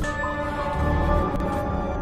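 Opening-sequence music: held sustained tones over a low bass note that comes and goes.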